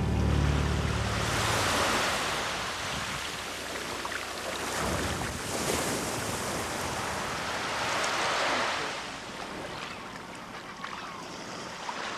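Small waves breaking and washing up a sandy beach, swelling and easing every few seconds.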